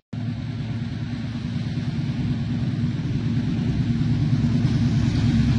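Diesel locomotive hauling a passenger train at speed, its engine rumble growing steadily louder as it approaches. The sound cuts in suddenly just after the start.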